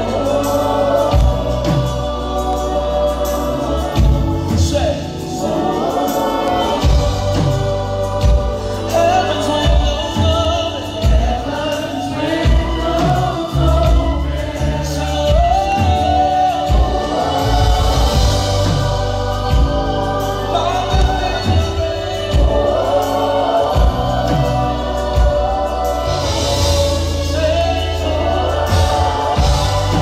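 Live gospel worship music: a group of singers on microphones singing together over a band, with a steady deep bass line and percussion.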